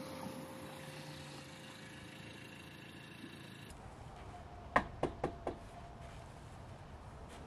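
Four quick knocks on a front door, evenly spaced, the first the loudest.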